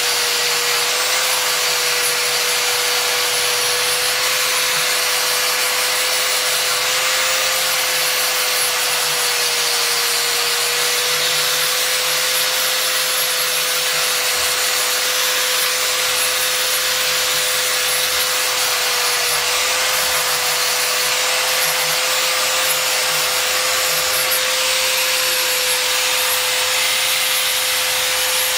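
Electric angle grinder with a sanding disc running steadily, sanding a wooden knife handle: a constant motor whine that wavers slightly in pitch, over the hiss of the abrasive on the wood.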